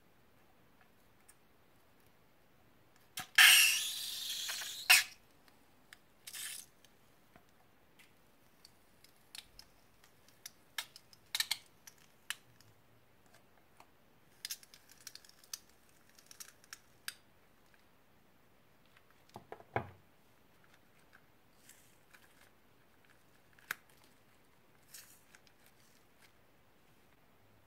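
Scissors snipping into a filled emoji squishy balloon. A few seconds in comes a loud spluttering rush of about a second and a half as the foamy filling squirts out, followed by scattered soft squelches and clicks as the balloon is squeezed.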